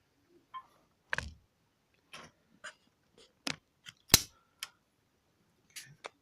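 Irregular handling clicks and knocks, about a dozen short sharp ones, the loudest about four seconds in; no motor is running.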